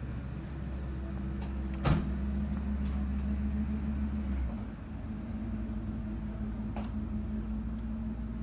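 A steady low engine hum, like a motor idling. There is a single sharp click about two seconds in, and the deepest part of the hum drops away about halfway through.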